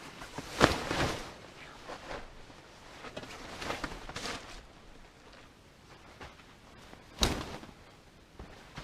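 Camping gear being handled: rustling with scattered clicks and two sharp knocks, one just under a second in and one about seven seconds in.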